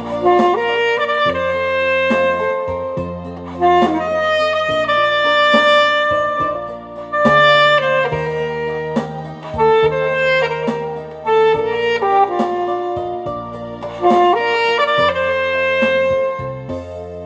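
Alto saxophone playing a melody in long held notes over a recorded backing track with bass and drums.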